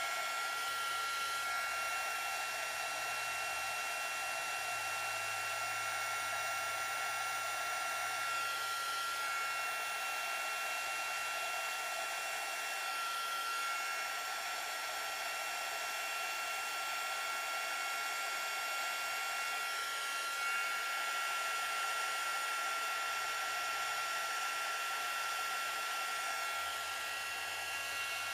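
A small craft heat gun, one that only gets to about 350 degrees, running steadily: a continuous fan hiss with a steady high whine. It is blowing hot air on silver-plated rhinestone settings to melt low-temperature solder.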